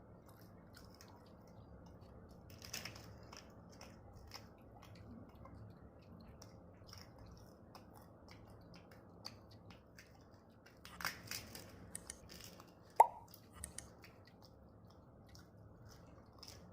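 A person chewing and eating food by hand, with scattered small clicks and mouth sounds. About three-quarters of the way through comes one sharp click, the loudest sound.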